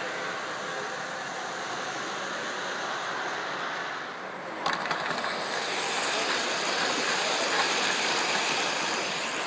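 Three-rail model train cars rolling past on the layout's metal track, a steady rattling rolling noise of wheels on rails. About halfway through it changes abruptly, with a few sharp clicks, to another train passing.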